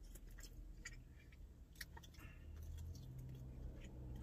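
Faint chewing with small wet mouth clicks as a man eats saucy chicken wings, over a low steady hum.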